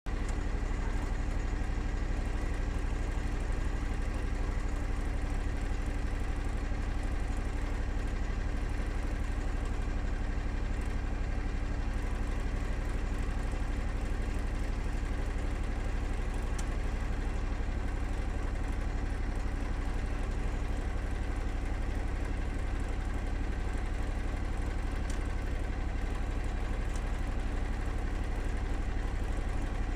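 A steady, unchanging low hum of running machinery.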